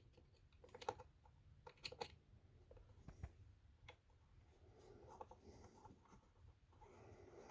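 Near silence with a few faint, scattered clicks of a small screwdriver working a screw on a sewing machine's wiring.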